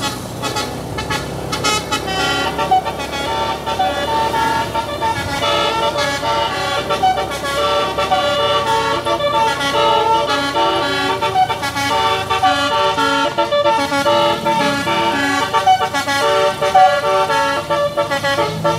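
Bus telolet horn playing a melody: a run of stepping multi-tone horn notes, one after another without a break.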